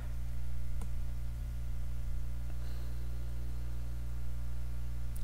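Steady low electrical hum of room tone, with a single faint click a little under a second in.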